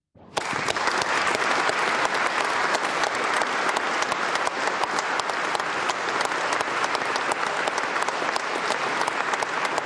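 Audience applauding, a dense, steady clapping that starts abruptly.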